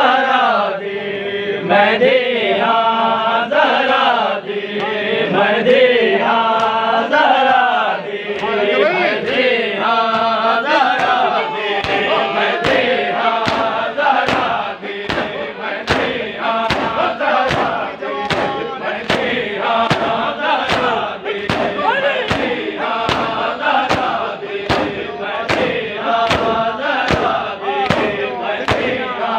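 Men chanting a noha, a Muharram mourning lament, with a group voicing the refrain. From about twelve seconds in, sharp rhythmic strikes of matam, hands beating on chests in unison, join the chant at about three every two seconds.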